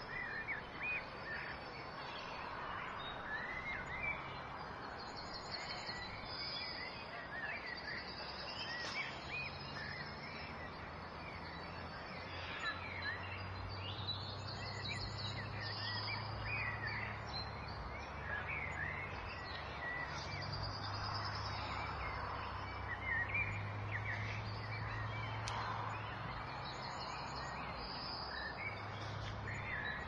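Many birds chirping and trilling all through, over a low suburban background hum that grows stronger about ten seconds in.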